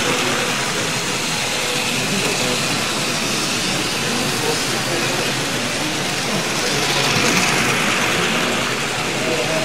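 Tri-ang TT gauge model trains running around the layout, their small electric motors and wheels whirring on the track, swelling as a train comes near about seven seconds in. Background chatter runs underneath.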